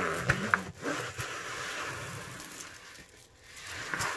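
A creased diamond-painting canvas in its plastic sleeve rubbed back and forth over the edge of a table to flatten it: a rasping, crinkling scrape in a few strokes, with a couple of sharp ticks near the start.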